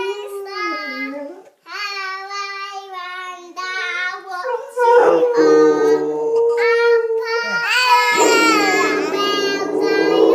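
A young child singing a nursery rhyme while a Rottweiler howls along. The howl is a long, flat, held note starting about halfway in, turning rougher and noisier near the end.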